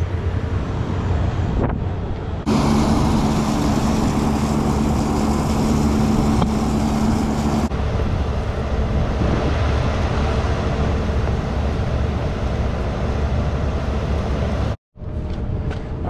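Steady rushing spray of a garden hose washing down a rooftop packaged air-conditioning unit, over the low hum of the unit's blower running. The sound changes abruptly a few times, and for a few seconds early on a steady mid-pitched hum rides on top.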